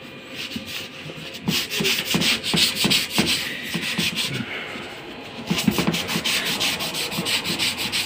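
A dry sponge with metal-thread fibres rubbed quickly back and forth over a washing machine's glass door, scouring off limescale. The scrubbing starts about a second and a half in, eases briefly in the middle, then picks up again.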